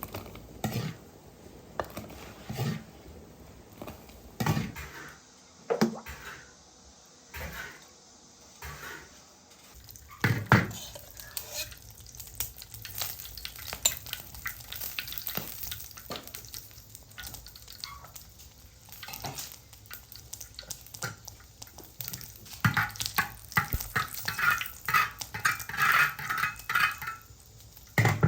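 Stir-frying in a wok: food sizzling while a metal spatula scrapes and stirs against the pan. A few separate knocks come in the first seconds, and a run of quick scraping strokes builds near the end.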